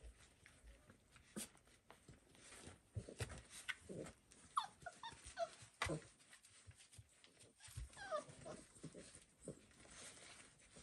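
Fox red Labrador puppies, about four and a half weeks old, whimpering faintly. A cluster of short falling squeaks comes about four to five seconds in and another about eight seconds in, amid light scuffles and taps of paws on bedding.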